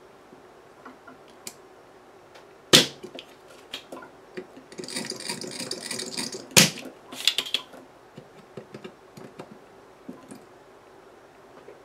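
Desoldering a transformer's pins from a circuit board with a corded desoldering tool: two sharp snaps, about three seconds in and near seven seconds, like a spring-loaded solder sucker firing. Between them comes a brief high hiss of hot solder and flux, along with small clicks of the tool against the board.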